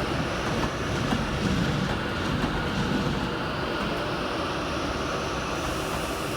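Train running over the points, its wheels clattering on the rails, with the uneven beat of a flat wheel that the spotter points out. The sound is louder and more uneven for the first three seconds or so, then settles to a steadier rumble.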